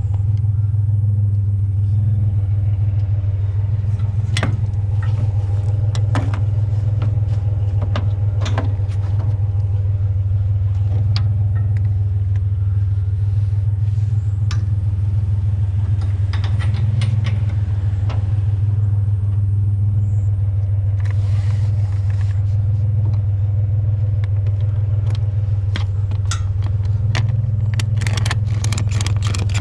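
Pickup truck engine running steadily with a low, even hum, with scattered clicks and rattles that grow more frequent near the end.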